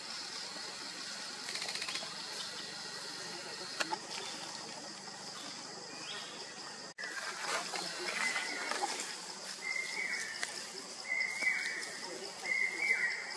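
Forest ambience with a steady high-pitched drone throughout. Just after the middle there is rustling, and then a bird calls repeatedly, short notes about once a second, each dropping in pitch at the end.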